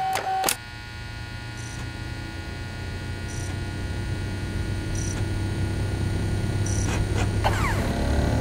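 Steady electrical hum made of many held tones, slowly growing louder, with a couple of clicks at the start and faint short high blips at even intervals.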